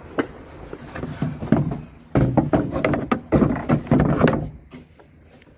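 Knocks, clicks and scrapes of a plastic headlight unit being handled and offered back into its mounting, busiest from about two seconds in and dying down near the end.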